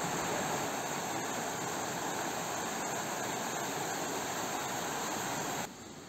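Steady rush of flowing water. It drops suddenly to a quieter rush near the end.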